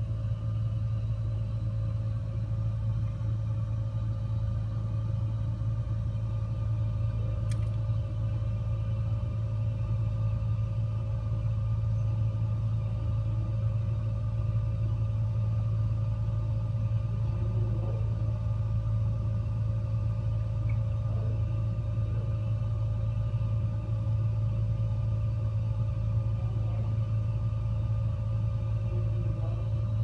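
Gas fireplace burning: a steady low rumble with a faint steady hum above it, and a single tick about seven and a half seconds in.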